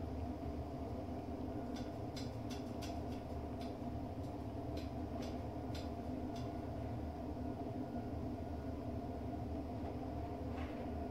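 A steady mechanical hum with a low rumble and several fixed tones runs underneath. Between about 2 and 6.5 seconds in, a dozen or so short clicks come irregularly from a kitten suckling on a nursing bottle.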